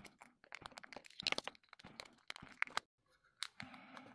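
Irregular sharp plastic clicks and crackles as a replacement lens is pushed and worked into the lens groove of an Oakley Frogskins frame, with a short pause about three seconds in before one more click.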